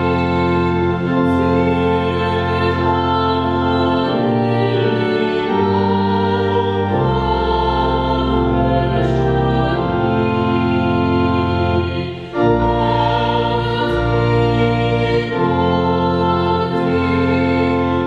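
Organ music: slow, held chords that change every second or two, with a brief break about twelve seconds in.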